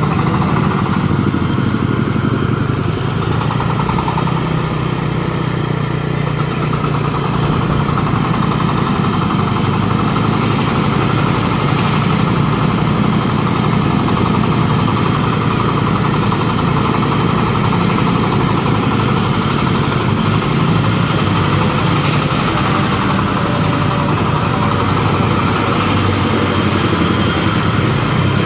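Corn sheller machine running, its engine at a steady speed.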